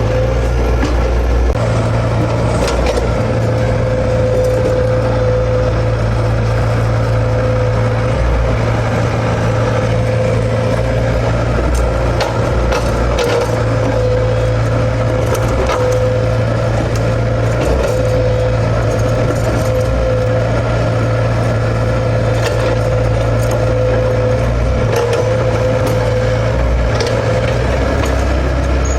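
Komatsu excavator's diesel engine running steadily under a constant whine, with scattered sharp knocks now and then.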